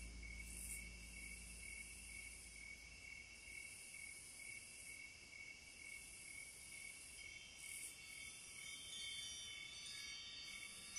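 Faint background ambience of steady, pulsing insect-like chirping over a high hiss, with a low hum that fades out about four seconds in.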